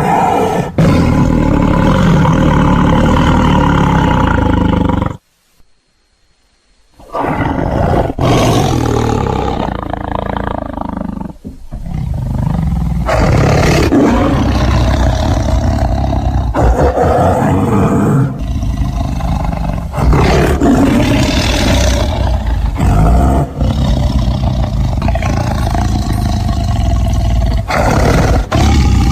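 Tiger roaring, loud and nearly continuous, with a break of about two seconds of silence some five seconds in and a short drop near twelve seconds.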